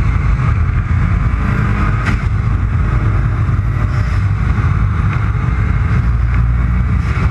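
Steady low rumble of wind buffeting and road noise on a camera mounted just above the road surface of a fast-moving racing vehicle, with a brief knock about two seconds in.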